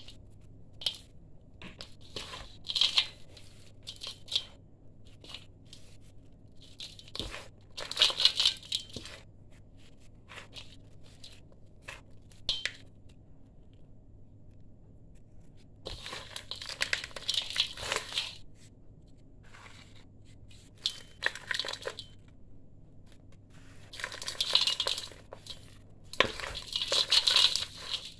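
Dry sand-cement mix crunched and crumbled by hand in a stainless steel bowl, gritty crackling with grains falling onto the steel. It comes in irregular bursts and single clicks, with longer stretches of crunching a little past halfway and again near the end.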